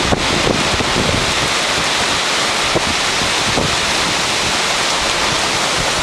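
Storm gusts of a thunderstorm front: strong wind rushing in a loud, steady hiss, with wind buffeting the microphone.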